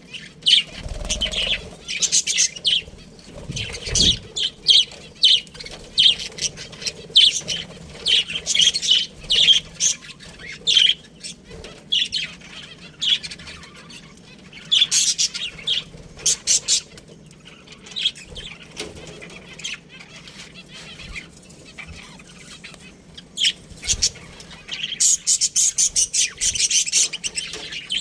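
Budgies chirping and chattering: a steady run of short, high chirps that grows thicker near the end, with a few low thumps in between.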